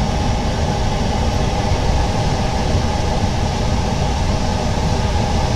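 Steady machine noise: a constant low hum with a hiss above it, unchanging throughout.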